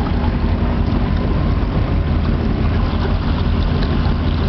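A boat's engine running steadily, with a constant low hum, mixed with wind noise on the microphone.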